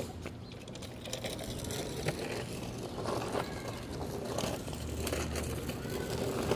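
Wheels rolling over ground to run over an old camcorder, with scattered knocks and crunches.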